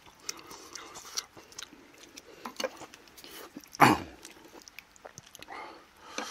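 Close-up mukbang eating sounds: chewing with soft mouth noises and small clicks of metal chopsticks against stainless bowls. About four seconds in there is one loud, sudden sound that falls in pitch.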